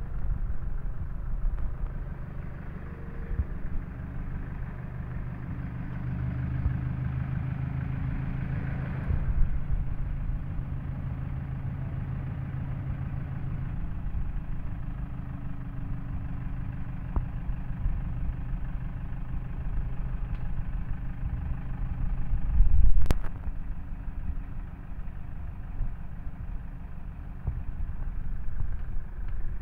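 A van's engine idling steadily, with one sharp thump about two-thirds of the way through.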